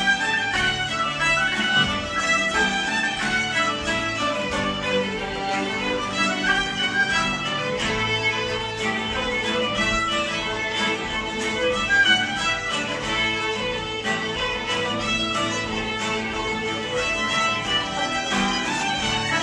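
Acoustic string band playing a tune: several fiddles bowing the melody together, backed by a banjo and acoustic guitars.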